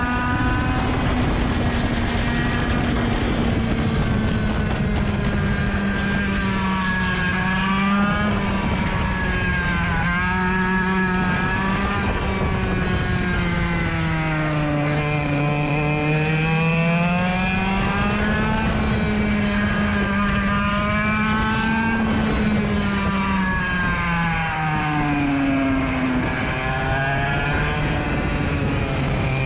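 Rotax DSB two-stroke kart engine at racing speed, its pitch rising under throttle and dropping into corners again and again through the lap. Another kart's engine can be heard briefly alongside at moments.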